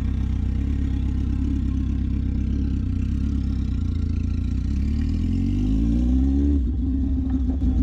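Loud Kawasaki ZX10 inline-four sport-bike engine idling, then revved up once about five seconds in, its pitch climbing for a second or two before dropping back.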